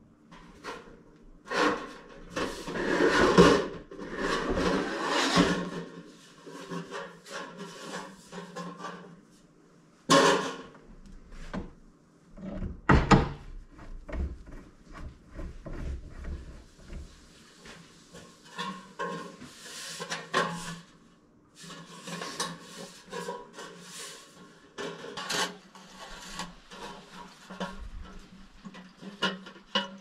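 Sheet steel plate being handled and bent in a hand-operated bench sheet metal brake: metal clanking, rubbing and scraping, with sharp knocks about ten and thirteen seconds in.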